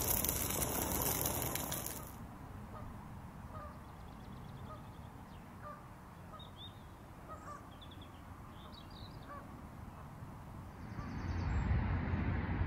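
Sausages sizzling in a griddle pan for about the first two seconds, cutting off suddenly. Then short, scattered bird calls over a quiet background, with a low rumble building near the end.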